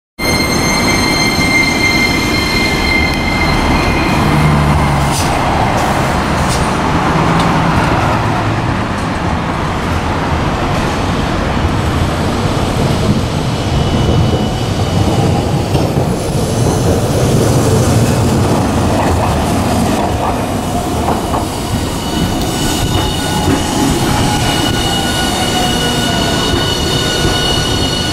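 Hiroshima Electric Railway 1000-series PICCOLO articulated tram running through an S-curve, its wheels squealing against the rails in high steady tones over a constant rumble. The squeal sounds briefly at the start and again from about halfway through as the tram comes past close by.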